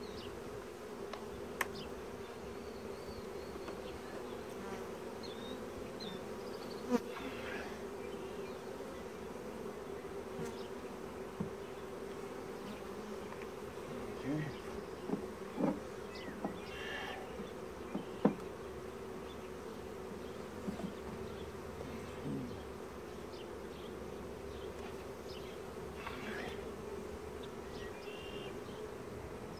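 Honeybees buzzing around an opened hive, a dense steady drone, with several sharp knocks as wooden frames and a metal hive tool strike the hive boxes.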